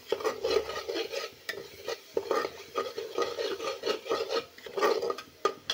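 A metal spoon repeatedly scrapes and clatters against the inside of a metal pressure-cooker pot as a thick spice masala is stirred and fried in oil. The masala has been fried until the oil separates.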